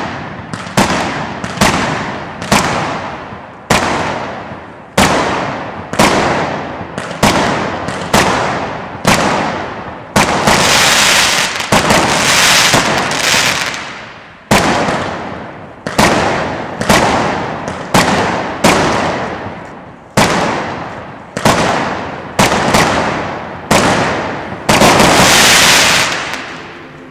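A WECO Titania 30-shot, 20 mm firework cake firing its shots in a steady run, about one sharp bang a second, each fading quickly. Twice the bangs give way to a few seconds of dense continuous sound: about ten seconds in and again near the end.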